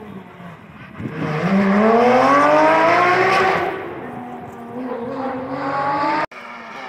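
Rally car engine at full throttle, its pitch climbing steadily for about two seconds. It eases off, climbs again, then cuts off suddenly.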